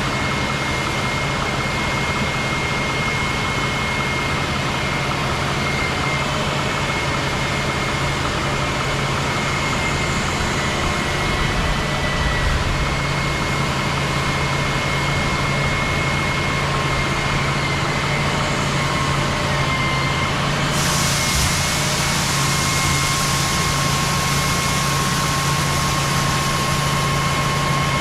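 Large diesel harvest machinery running steadily, a deep engine hum with a thin high whine over it. About 21 s in, a brighter hiss joins and stays.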